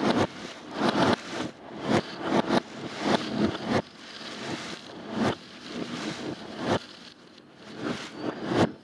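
Many New Year's Eve fireworks bangs and booms, irregular and overlapping, heard through a closed double-pane window and played in reverse, so each one swells up and cuts off abruptly.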